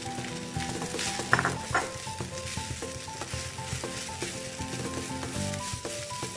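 Rice and diced carrots sizzling in a hot frying pan as they are stirred and pushed around with a wooden spatula, with a sharp knock about a second in. Background music with a simple melody plays throughout.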